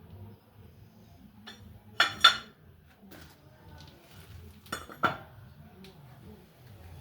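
Metal parts and tools clinking and knocking against each other: two pairs of sharp clinks about two and five seconds in, the first pair loudest, with a few lighter taps in between.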